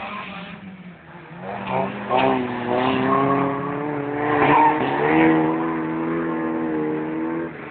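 Folkrace car engines revving hard through a corner. The note climbs about a second in, holds at high revs, and drops off sharply near the end.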